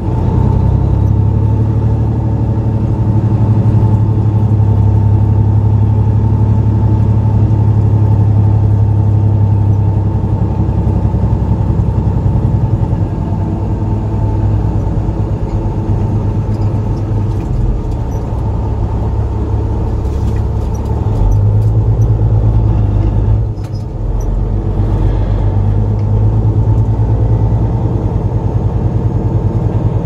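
Diesel semi-truck engine running steadily as the truck rolls slowly along, heard from inside the cab, with a brief dip in level about three-quarters of the way through.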